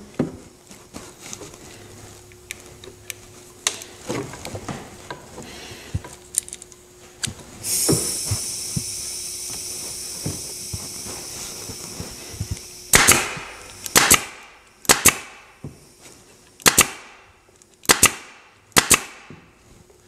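Electric staple gun firing staples through jute webbing into an oak chair frame: six sharp snaps about a second apart in the second half. A steady high hiss runs for several seconds before the first shot.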